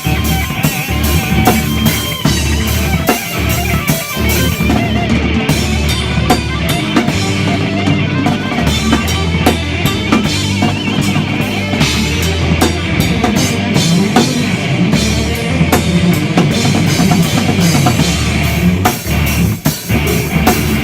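Rock band playing live at rehearsal: a busy drum kit with cymbals and kick drum over a sustained bass line and guitar.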